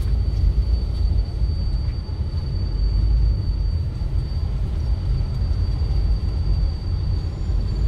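Car interior noise while driving slowly: a steady low rumble of the engine and the tyres rolling on an unpaved road, heard from inside the cabin, with a faint steady high whine over it.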